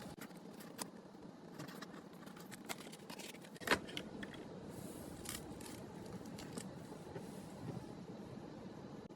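Album packaging being opened and handled by hand: scattered small clicks and rustles, with one sharper click about three and a half seconds in.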